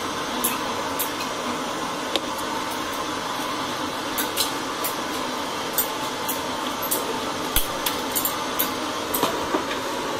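Small lead battery parts clicking and clinking irregularly as connectors and terminal posts are set onto the plate straps in a plastic battery case, over a steady background hum.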